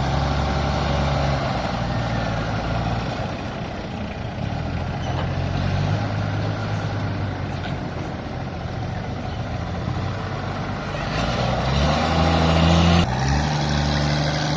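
Heavy diesel engine running steadily, then working harder and rising in pitch about eleven seconds in, with a sudden change near the end.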